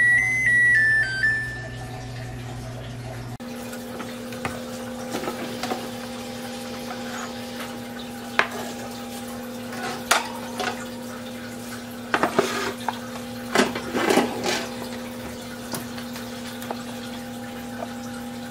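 Dishes being washed by hand: scattered clinks and clatters of dishes and utensils in a sink, with water. A short melodic run of notes plays at the start, and a steady hum with two held tones lies under the clinking.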